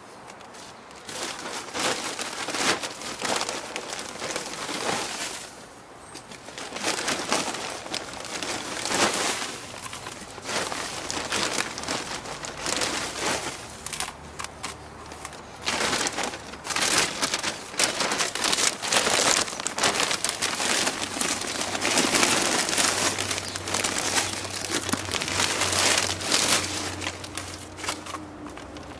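Gloved hands scooping, spreading and pressing loose potting soil in a pot: an irregular, continuous rustling and crunching of soil, with short pauses. The soil is fresh potting mix being added to cover a repotted plant's roots.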